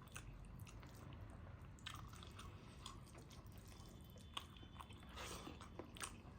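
Faint chewing and mouth sounds of a person eating a rice-and-curry meal, with a few soft clicks scattered through.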